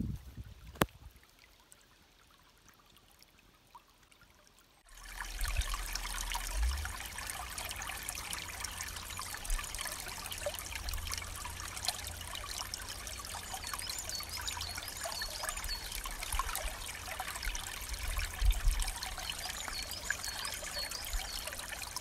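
Near quiet with a single click, then about five seconds in a small stream starts trickling and splashing steadily, with an uneven low rumble underneath.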